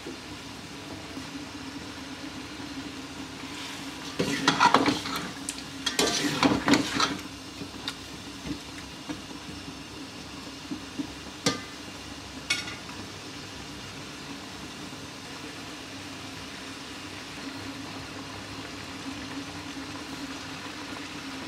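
A metal spoon stirs chicken curry in a metal cooking pot, clattering and scraping loudly about four and six seconds in, then giving two sharp taps against the pot. Under this the curry sizzles steadily as it heats toward the boil.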